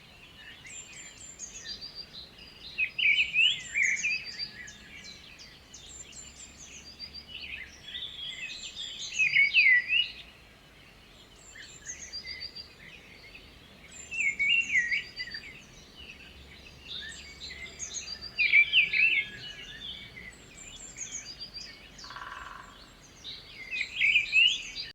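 Several birds singing and chirping together: a steady high twittering, with a louder song phrase coming about every five seconds.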